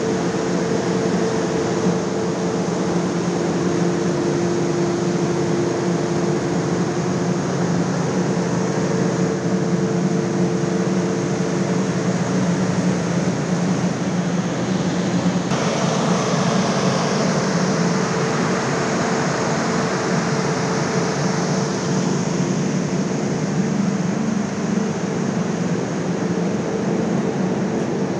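Corn dryer machinery running: a loud, steady machine hum with a low drone and a higher tone over an even rushing noise. The noise shifts slightly about halfway through.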